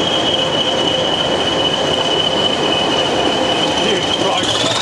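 Two English Electric Class 20 diesel locomotives working in tandem, heard from a carriage behind them: the hard-working engines with a steady high whistle that rises in pitch near the end.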